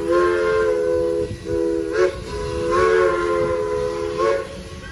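4-4-0 steam locomotive's chime whistle blowing a chord of steady notes in several blasts, with a short break between each. The last blast ends about four and a half seconds in, leaving a low hiss.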